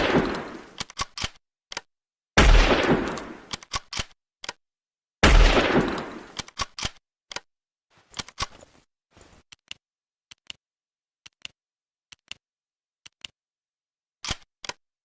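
Mosin-Nagant bolt-action rifle firing two shots about three seconds apart, each with a long fading echo and followed by a quick run of sharp metallic clicks as the bolt is worked. It opens on the echo of an earlier shot, and after the second shot only scattered faint clicks follow.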